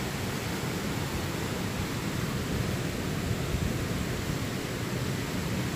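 Steady rushing of flowing water, an even noise that holds without change.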